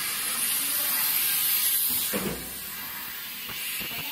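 Steady compressed-air hiss from the pneumatic suction-cup lifter of a CNC router's automatic panel loader. About two seconds in, the hiss drops off with a short low knock, followed by a few faint ticks.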